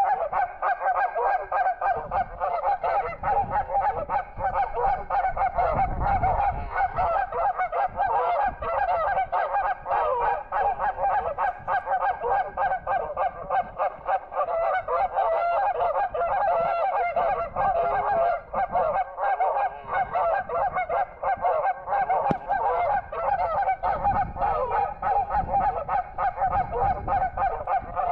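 A large flock of geese honking continuously, many calls overlapping. Brief low rumbles come in about six seconds in and again near the end.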